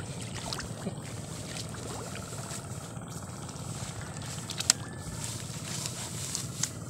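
A steady low rumble like wind on the microphone, with a few faint scattered clicks and squelches as hands pull young rice seedlings out of the wet mud of a seedbed.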